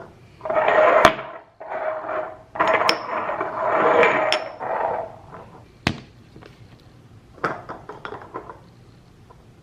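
Spice being poured through a funnel into a small glass jar: a grainy hiss in two runs, with a ringing tone from the jar. Then a sharp knock and a few quick clicks of glass and the funnel being handled.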